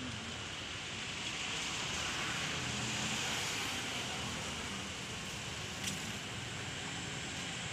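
Steady background hum of distant road traffic, with one brief click about six seconds in.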